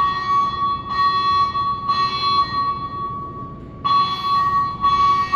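Building fire alarm speaker-strobes sounding a loud, steady tone in a three-pulse pattern: three roughly one-second tones, a short pause, then the next set of three begins.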